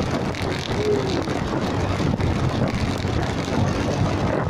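Steady rushing noise of riding along a road: wind on the microphone mixed with road and traffic noise.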